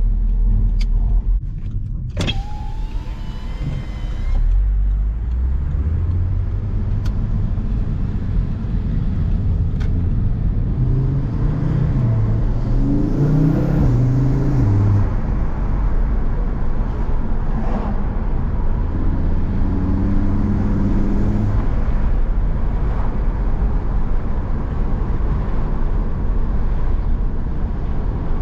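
Audi RS3 8P's turbocharged five-cylinder engine breathing through a 034 Motorsport carbon intake while driving. The engine note climbs under acceleration about halfway through and again about two-thirds in, over steady engine and road noise.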